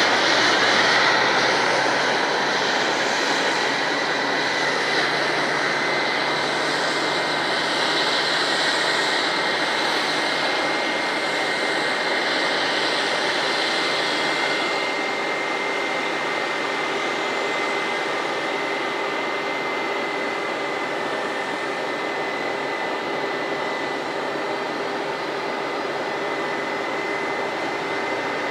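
Airbus A320 turbofan jet engines running: a steady rushing noise with a thin, high, steady whine. The brightest hiss eases off about halfway through, and the whole sound grows slowly quieter.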